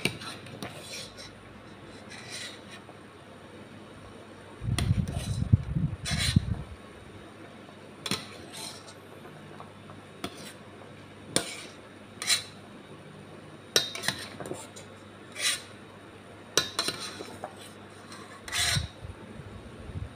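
Metal ladle clinking and scraping against a stainless steel pot as vegetables are scooped out of boiling water, a dozen or so scattered knocks and taps. Low rumbling thumps about five seconds in and again near the end.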